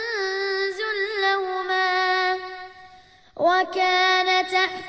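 A child's voice chanting Quran recitation in a melodic tajweed style, holding long drawn-out notes with wavering ornaments in pitch. The voice breaks off briefly about three seconds in, then resumes on a new held note.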